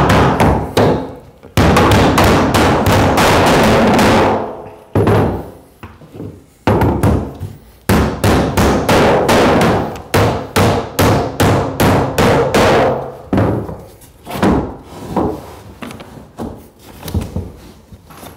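Repeated blows knocking wooden floorboards into place, in several runs of quick strikes with short pauses between, growing fainter near the end.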